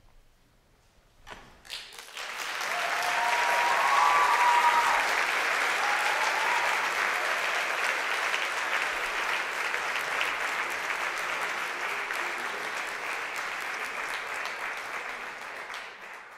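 Audience applause: after about a second of near silence it breaks out and swells quickly into steady clapping, with a few short cheers near its peak, then begins to fade near the end.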